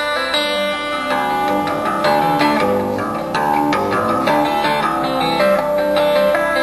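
Harp guitar played fingerstyle: a quick flow of plucked, ringing notes over low bass notes.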